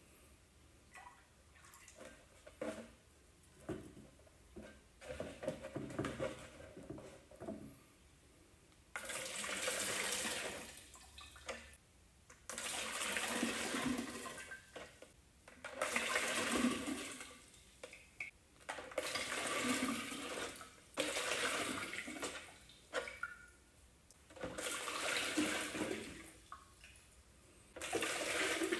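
Blue copper sulphate solution pouring from an upended plastic jug into a glass jar, rushing and splashing in about seven surges of two to three seconds with short breaks between them, starting some nine seconds in. Before that, only a few faint knocks.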